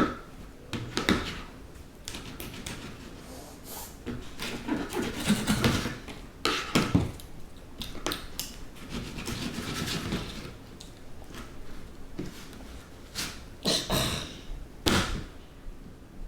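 Irregular knocks and clatters, the loudest about a second in, around 7 seconds and near the end, with softer rustling and handling noise between them.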